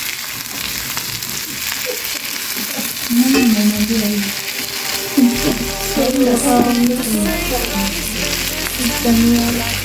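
Food sizzling steadily as it fries in a pan, with background music playing over it.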